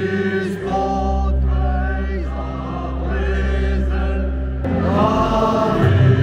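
Crowd of football supporters singing a chant together over music with long held low notes.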